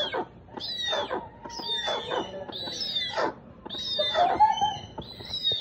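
Young birds with fluffy yellow heads calling in a repeated harsh screech, about one call a second, each sweeping down from high to low pitch: the begging calls of chicks gaping for food.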